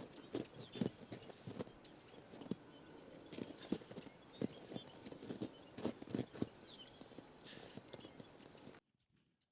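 Irregular knocks and thumps, one or two a second, with small birds chirping in the background; it all cuts off suddenly near the end.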